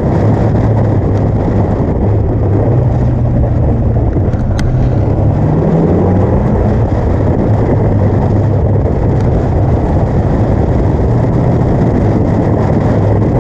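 Caterham Seven 360's four-cylinder Ford Duratec engine running hard at track speed, heard from the open cockpit with wind and road noise. About halfway through the engine note rises for a couple of seconds as the car accelerates.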